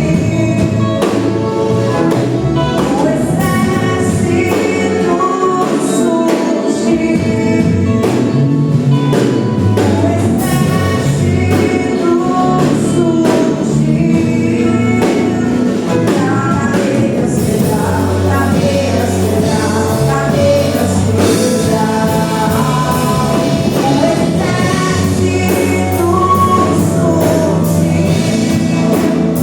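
Portuguese gospel worship song sung by a group of singers over a band, with steady bass notes and a drum beat.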